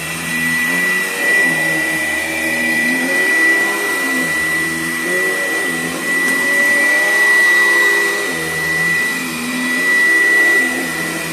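Filter Queen LD33 canister vacuum cleaner running with a steady high whine, over a lower hum that shifts up and down in pitch every second or so. The owner says it runs perfectly fine.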